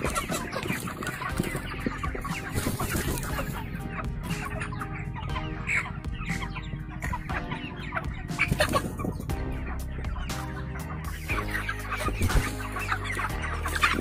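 A flock of broiler chickens clucking and cheeping, with many short calls overlapping.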